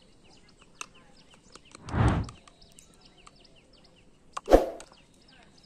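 Faint chirping of small birds in the background, broken by two short, louder noises: a rustling thump about two seconds in and a sharp knock with a brief rustle about four and a half seconds in.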